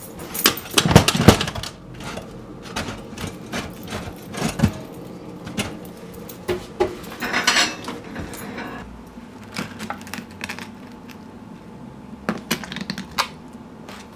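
Kitchen handling sounds around a pop-up toaster and a plate of bagels: a run of clunks, clicks and clatters, loudest about a second in, with a brief scrape around seven seconds and a few sharp clicks near the end.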